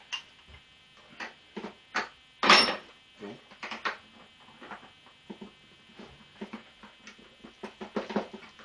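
Irregular metallic clicks and knocks of a 13 mm socket and hand tools being worked on a motorcycle's bolts, with one louder clatter about two and a half seconds in.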